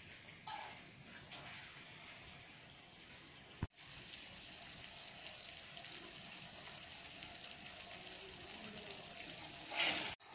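Beef pieces frying in a kadai, with a steady fine sizzle as the last of the cooking liquid dries off, and a metal spoon stirring and scraping through the meat. The sound cuts out for an instant about a third of the way in, and there is a louder scrape near the end.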